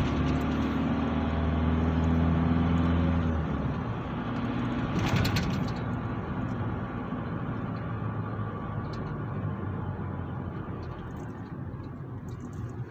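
Car engine and road noise heard from inside the cabin while driving: a steady engine hum that falls away about three and a half seconds in, a short burst of noise about five seconds in, then road noise that gradually gets quieter as the car slows.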